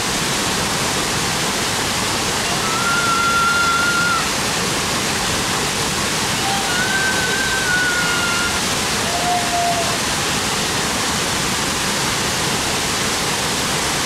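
Fast, shallow river rushing over rocks near a waterfall: a steady, loud, continuous rush of white water.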